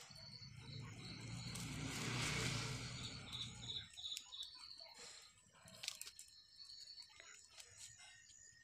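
A rushing noise with a low hum swells and fades over the first four seconds, and a bird chirps several times in quick succession near its end. Then faint clicks and rustles from the plastic wire strands being knotted by hand.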